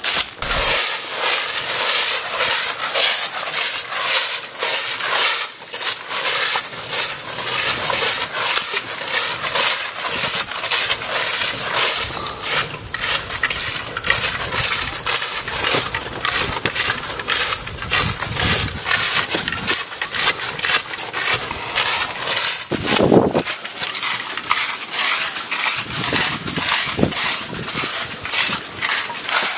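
Footsteps crunching through thick dry fallen leaves on a forest trail, at a steady walking pace.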